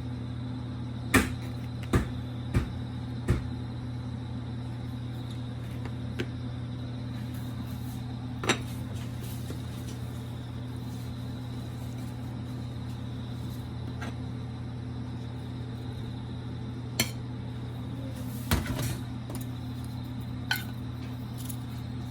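Scattered sharp clinks and knocks of household objects being handled, a few close together near the start and more later on, over a steady low hum.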